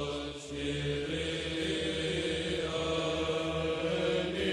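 Background music of slow chanting, with long held notes over a steady low note.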